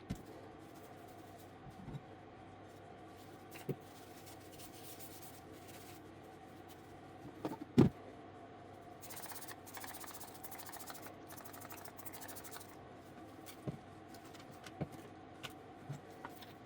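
Workshop handling sounds over a steady machine hum: scattered small knocks and clicks, a louder knock about eight seconds in, and a few seconds of hissing spray just after it.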